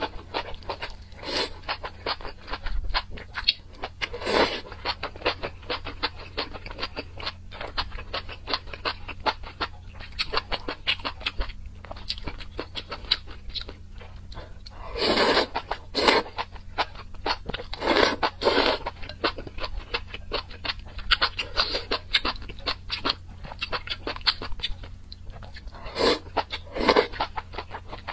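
Close-miked eating: continuous wet, crunchy chewing with many small clicks. Louder slurps or bites break in every few seconds as mouthfuls of spicy strands are pulled from chopsticks.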